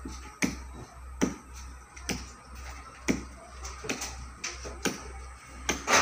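A series of sharp clicks, roughly one a second, over a low hum.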